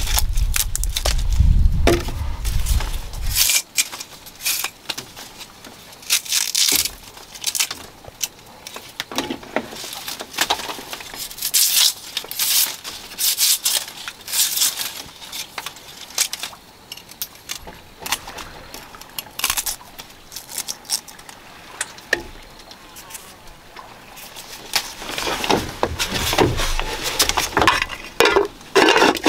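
A knife cutting and peeling the sheaths off fresh bamboo shoots: irregular crisp cracks and rustles as the fibrous husks split and tear away, with a low rumble for the first few seconds. Near the end a pot lid is set down.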